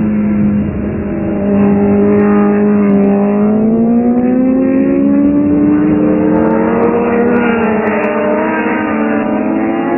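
Superbike racing motorcycles running hard through a corner, their engine note loud and steady at first, then climbing in pitch through the middle as they accelerate.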